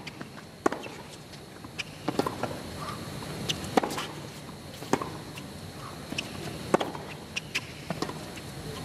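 Tennis rally on a hard court: the sharp pock of racket strikes and ball bounces, a single hit or bounce every second or so, over a quiet, hushed stadium.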